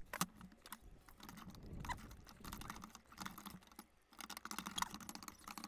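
Faint, irregular small clicks and light scraping of a metal spoon in a stainless steel pot as the porridge is eaten, with a short lull about four seconds in.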